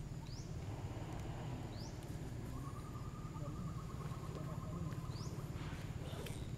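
Outdoor ambience: a steady low hum, with three faint short rising chirps and a flat, buzzy trill lasting a couple of seconds in the middle.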